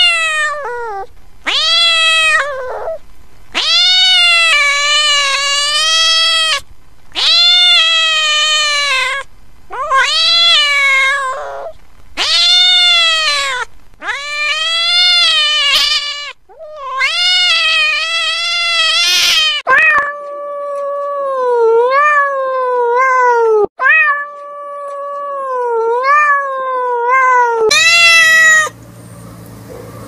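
A cat meowing over and over: about eight long, drawn-out meows that rise and fall in pitch, each lasting one to three seconds. These are followed by one long wavering call of about seven seconds and a short noisy burst near the end.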